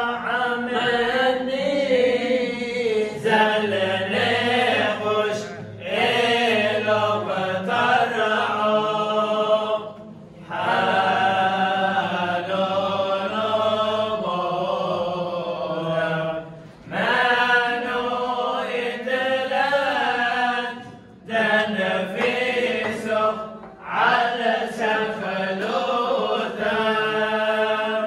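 Men's voices chanting a liturgical hymn: long sung phrases broken by short pauses for breath.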